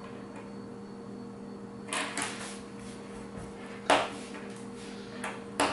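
Flush cutters snipping the wire leads of a freshly soldered diode on a small circuit board: sharp snaps about four seconds in and again near the end. A light clatter about two seconds in as the soldering iron is set in its stand, over a faint steady hum.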